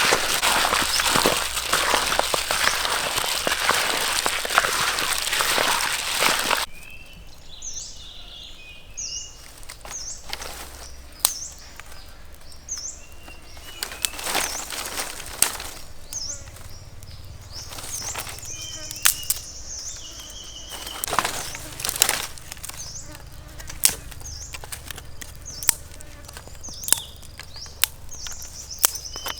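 Food frying in hot oil: a loud, steady sizzle with crackles that cuts off suddenly about seven seconds in. After that, birds chirp with scattered clicks and knocks.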